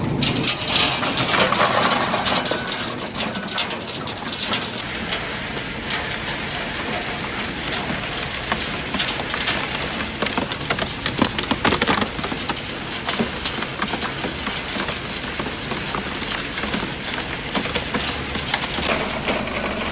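Scrap appliance recycling machinery running and breaking up scrap, a steady mechanical din with a continuous clatter of small impacts.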